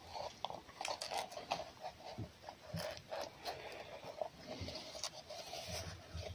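A red fox and a cat eating meat close by, heard as quick, irregular wet chewing clicks and smacks.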